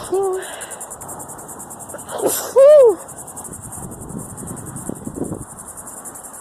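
A woman sneezing in an allergy sneezing fit. The end of one sneeze trails off at the start, then a sharp rush of breath and a loud 'choo' sneeze come about two seconds in, over a steady high-pitched chirping.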